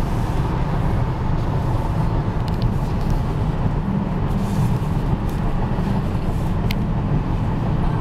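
Steady low rumble of a car's engine and tyres on a snowy road, heard from inside the cabin, with a couple of faint clicks.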